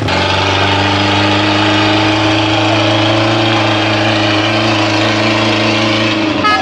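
Truck's diesel engine running close by at steady revs, its pitch holding level.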